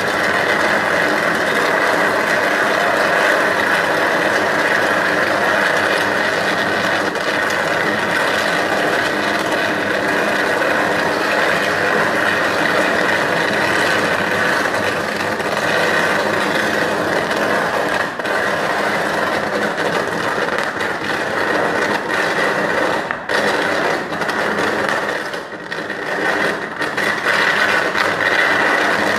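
A sustained electrical arc from a short-circuit fault on a utility pole's power line, burning continuously with a loud, steady crackling buzz. The level dips briefly a few times near the end.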